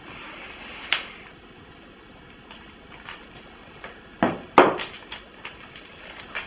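Crinkling and clicking of a small clear plastic bag being handled, with scattered sharp ticks and two louder knocks about four and a half seconds in.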